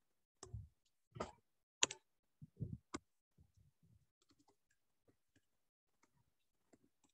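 Faint clicks and taps from handwriting on a computer screen. About five sharper ones come in the first three seconds, then softer scattered ticks follow.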